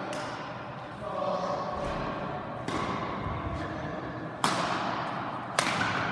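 Badminton rackets striking a shuttlecock in a rally, sharp cracks that echo in a large hall: a softer hit about two and a half seconds in, then two loud hits about a second apart near the end.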